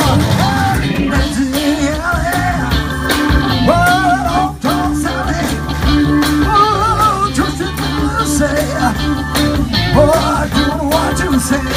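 Live rock band playing, with a male lead singer over drums and keyboard; the sung line wavers with vibrato and the drums keep a steady beat throughout.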